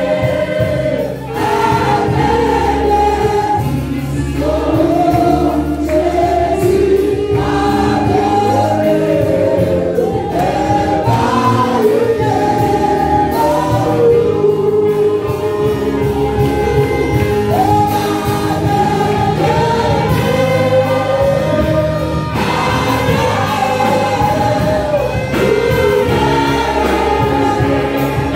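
Church choir singing a gospel hymn together, accompanied by a small orchestra of trombone, saxophone and violin.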